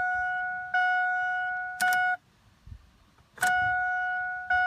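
2002 Ford Focus dashboard warning chime ringing about once a second, each ding a clear tone that fades away. As the ignition key is cycled to prime the fuel pump, a click about two seconds in stops the chime, and another click about a second later starts it again.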